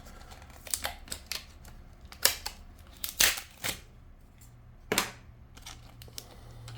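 Wera plastic tyre levers and their packet being handled: a string of separate sharp plastic clicks and rustles, the loudest a little after two and three seconds in, over a faint steady low hum.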